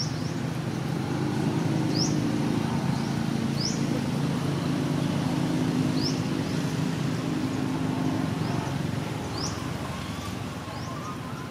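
A motor vehicle's engine running: a low steady hum that grows louder about a second in and fades after about eight seconds. Short high rising chirps from a small bird repeat every second or two.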